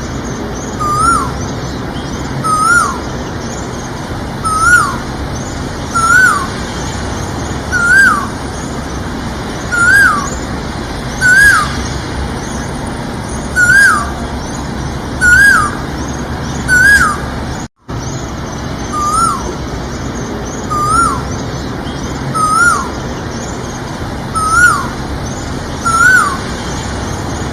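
Male Asian koel giving its repeated whistled 'ko-el' call, each note rising then dropping in pitch, about every one and a half to two seconds over a steady background hiss. The audio cuts out completely for a split second about two-thirds of the way through.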